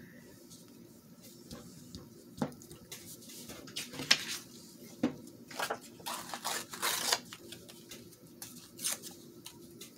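Glue stick rubbed across paper and torn paper scraps pressed down and rustled by hand, an irregular run of scraping and crinkling that is busiest in the middle, with a few sharp clicks.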